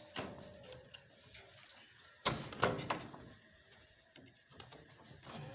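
A few sharp knocks and a brief clatter of hard objects, the loudest burst about two seconds in and lasting about a second, then faint shuffling.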